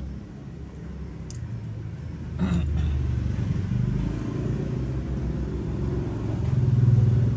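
Low rumble of passing motor traffic, swelling near the end, with one sharp knock about two and a half seconds in.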